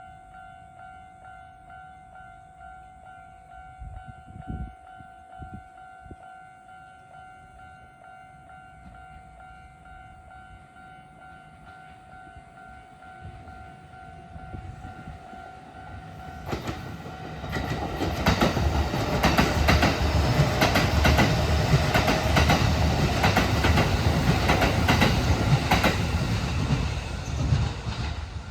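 Japanese level-crossing alarm ringing in a rapid, steady repeated ding. About sixteen seconds in, a Kintetsu Nagoya Line train passes over the crossing, much louder, its wheels clattering over the rail joints and drowning out the bell before it fades near the end.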